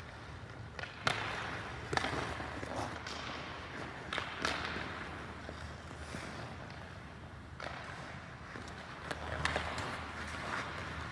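Hockey training on ice: irregular sharp cracks and knocks of sticks and pucks, with skate blades scraping in between.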